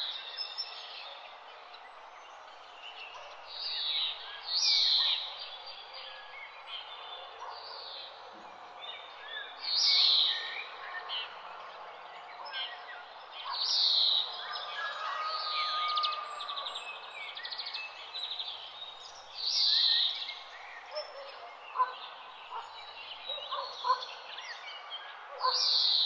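A chorus of wild birds calling and singing over a steady background hiss. One loud, short call sweeps down in pitch and repeats every few seconds over many smaller chirps.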